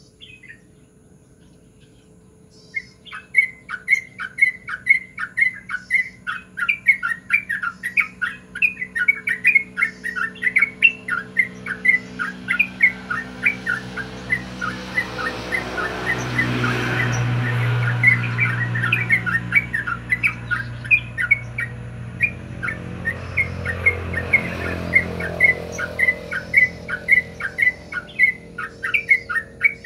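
Caged yellow-vented bulbul singing a long, rapid run of short whistled notes, starting about three seconds in. Partway through, a low rumble swells and fades twice under the song.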